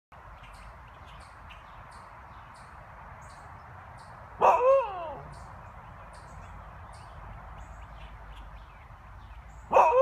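A Siberian husky barks twice, about four and a half seconds in and again near the end. Each call is short and slides down in pitch. Between the barks, faint high peeps of nestling birds repeat.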